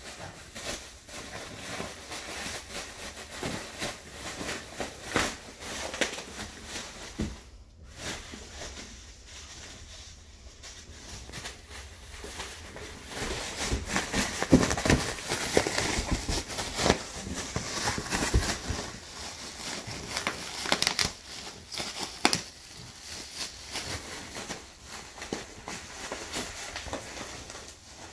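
Plastic air-pillow packing crinkling and crackling as a French bulldog pulls it out of a cardboard box and worries it with its mouth, with the cardboard rustling. The crinkling comes in irregular bursts and is loudest around the middle.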